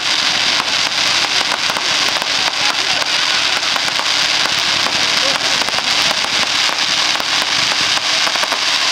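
Aerial fireworks in a finale barrage, giving a dense, continuous crackle of many small rapid pops that keeps up without a break.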